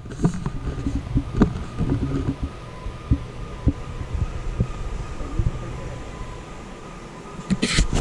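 Low rumbling handling noise from a carried action camera, with irregular soft thumps from walking steps, over a faint steady hum in a large hangar. A brief hissing rustle comes near the end.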